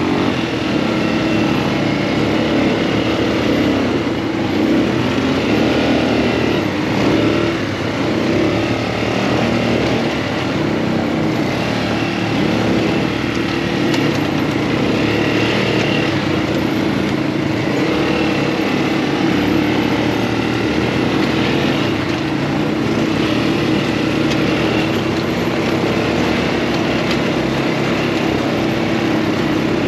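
Off-road buggy's engine running steadily as it is driven forward, a continuous drone with a slight dip in level about eight seconds in.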